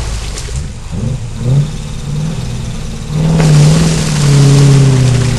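Land Rover Defender's V8 petrol engine revved in a mud hole: a couple of short blips, then held at high revs and louder from about three seconds in.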